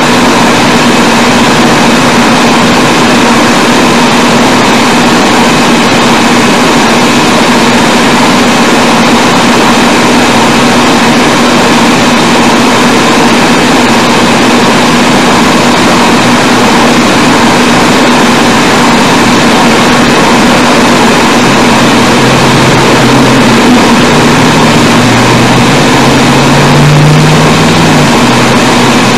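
Loud, steady hiss with a constant hum from a poor-quality old sermon recording, with no speech heard. A few faint low tones come in near the end.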